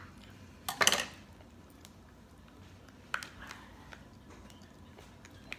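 Scissors snipping through the hard shell of a king crab leg: a sharp crackling cut a little under a second in, then a smaller click about three seconds in and a few faint ticks.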